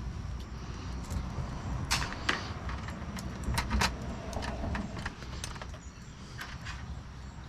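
A grille insert being fitted by hand into a Jeep Gladiator's grille: scattered clicks, taps and scrapes of the part against the grille, the loudest about two seconds in and again around three and a half to four seconds in, over a low steady rumble.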